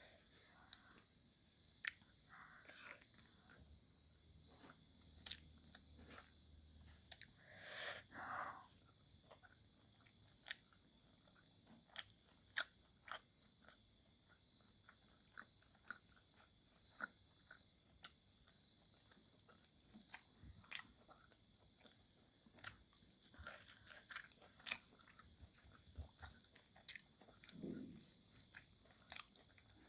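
Quiet eating sounds, with scattered sharp clicks and smacks of chewing, over a steady high-pitched chirring of insects.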